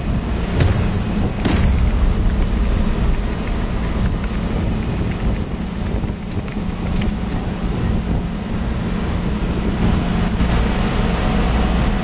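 Ship's engine-room machinery running with a steady, loud low hum, with two sharp clicks about half a second and a second and a half in.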